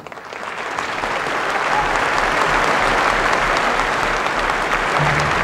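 Theatre audience applauding. The clapping swells over the first second or so and then holds steady.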